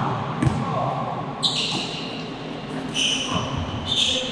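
Basketball game in an echoing gym: sneakers squeaking on the court in three short high squeaks, a ball thudding on the floor, and voices in the background.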